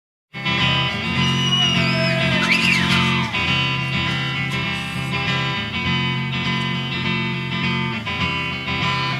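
Instrumental intro of a guitar-led Britpop-style rock song made with the Udio AI music generator. It starts abruptly out of silence, with a few gliding notes in the first seconds.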